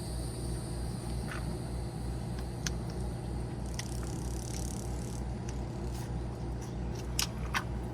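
Steady low hum of a running motor with an even, rapid pulse, under a thin high whine, with a few light clicks, two of them close together near the end.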